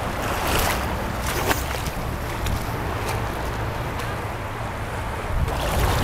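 Wind buffeting the microphone over the steady rush of a fast river current, with a few brief splashes from a person wading thigh-deep through the water in the first half.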